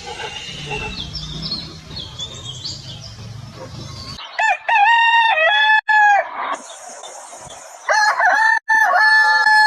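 A rooster crowing twice, each crow about two seconds long, loud and clear, starting a little under halfway through and again near the end. Before them, up to an abrupt cut, there is a busier stretch of scattered higher calls over a low rumble.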